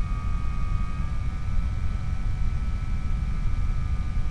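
Skyhunter FPV plane's electric motor and propeller running steadily in flight, heard as a low rumble with a thin steady whine that steps up slightly about a second in.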